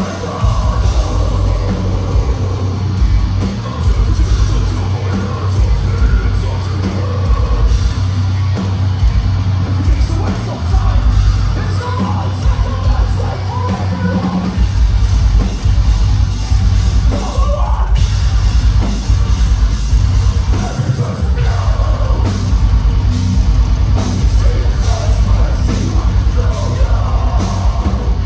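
Metalcore band playing live and loud: heavy distorted guitars and bass, fast pounding kick drums, and yelled and sung vocals over them.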